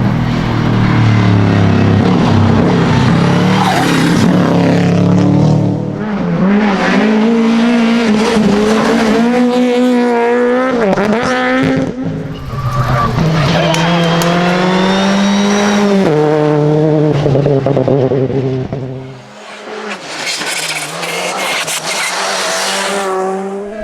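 Rally cars at full throttle on a stage, engines revving hard and dropping in pitch at each gear change, with tyre squeal and skidding. It comes as several runs one after another, with a brief dip near the end.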